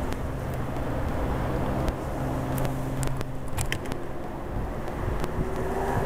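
Outdoor city ambience: a steady low rumble of distant road traffic, with a steady engine hum in the first few seconds and a few light clicks around the middle.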